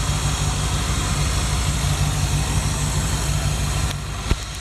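Chevy 454 big-block V8 idling steadily with a low, even pulse, heard from beside the open engine bay. A single short knock near the end.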